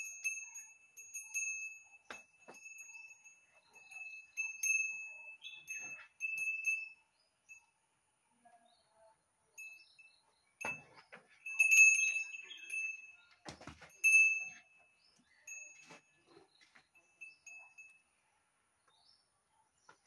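A new cattle bell on a calf's neck ringing on and off, jingling again and again as it is fastened and the calf moves. There are a few soft knocks in between.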